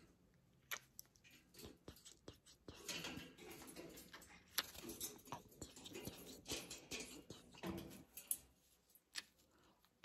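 Faint, irregular soft smacks and small clicks of close-up kissing and beak-to-lips contact with a pineapple conure.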